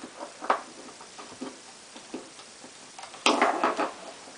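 Small scattered clicks and taps, then a louder brief scraping rattle a little after three seconds in: a screwdriver working at an iMac's RAM access cover to get it loose.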